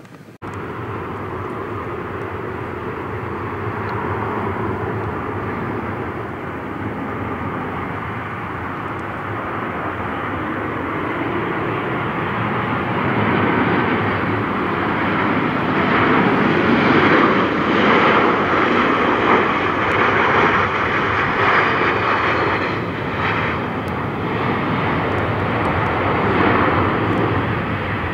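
Airplane engines of a passing aircraft. The sound starts abruptly, builds to its loudest a little past halfway through, then eases off slightly.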